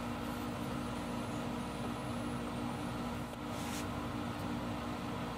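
Steady mechanical hum with two constant low tones, like a running fan or appliance. A brief soft scrape about three and a half seconds in.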